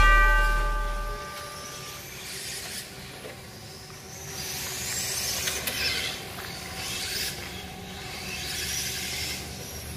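The last notes of background music ring out and fade over the first two seconds. Then an electric RC touring car runs on the track, its motor and tyres passing in several swelling whooshes.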